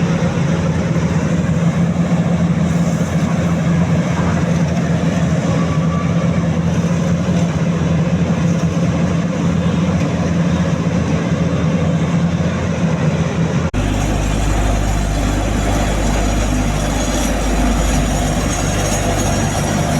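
Steady engine and road noise of a moving vehicle, with a constant low hum. About two-thirds of the way through it changes abruptly to a deeper, heavier rumble.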